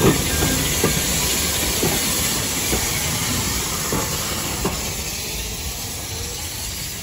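Furness Railway No. 20 steam locomotive passing close by at low speed, hissing steam, with sharp wheel clacks over the rail joints about once a second. The sound eases off in the last couple of seconds as it moves away.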